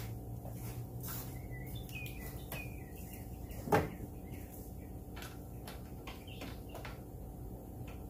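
Scattered light clicks and knocks of a hand wrench working against engine parts, one louder knock about four seconds in, over a steady low hum. Faint high chirps come and go in the background.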